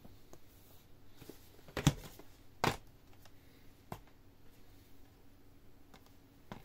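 Plastic DVD cases being handled and stacked: a few sharp clacks, the loudest a quick double one about two seconds in, with others near three and four seconds and at the end, and faint rustling between.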